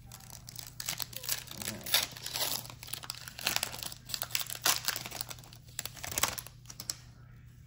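Foil wrapper of a trading card pack crinkling and tearing as it is pulled open by hand, in dense irregular crackles that start about a second in and die down near the end.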